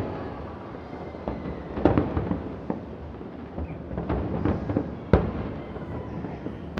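Distant aerial fireworks shells bursting in an irregular series of booms and cracks over a low rumble, the sharpest bang about five seconds in.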